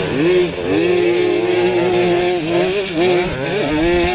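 Simson two-stroke single-cylinder pit bike engine at racing revs, heard from on board: it holds a high, steady pitch with several brief dips where the revs drop and climb straight back.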